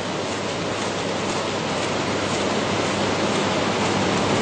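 A steady rushing noise, slowly growing louder.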